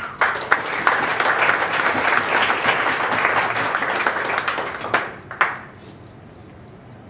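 Audience applauding: many hands clapping together, dying away after about five seconds with a few last separate claps.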